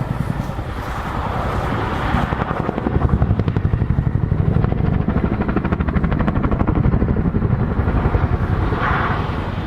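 Boeing Chinook HC2 tandem-rotor helicopter flying past with heavy rotor blade slap: a rapid, even thudding from the two rotors that is loudest in the middle of the pass and eases off near the end.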